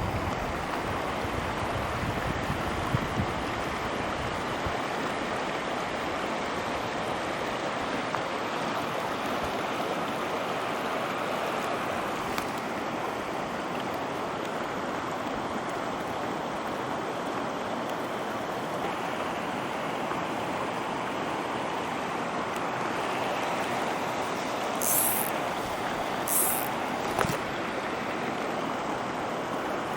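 Small mountain trout stream rushing steadily over rocks. Three brief high hisses come near the end.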